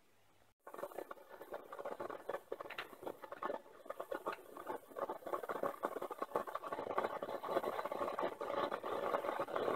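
Don Pedro vacuum coffee maker bubbling as hot water and steam are forced up from the lower pot through the bed of ground coffee in the glass bowl: a dense, irregular crackling fizz that starts suddenly about half a second in and grows denser.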